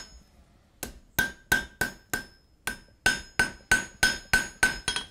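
Hand hammer striking a thin bar of hot steel on an anvil, about three blows a second, each with a short metallic ring from the anvil. It starts after a pause of under a second. The blows are knocking the sharp edges off the bar and hammer-texturing it.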